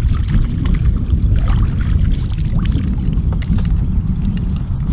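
Wind buffeting the microphone: a loud, uneven low rumble throughout, with faint scattered ticks above it.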